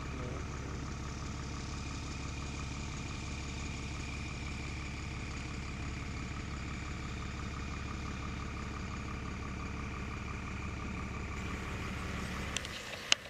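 A motor humming steadily at an even pitch. Near the end it cuts off abruptly, followed by two sharp clicks.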